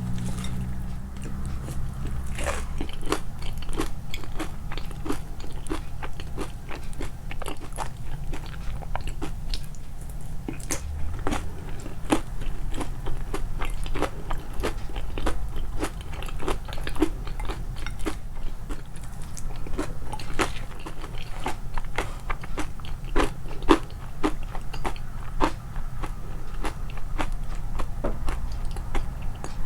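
Close-miked chewing of crunchy breakfast cereal: a dense, irregular run of crisp crunches and bites.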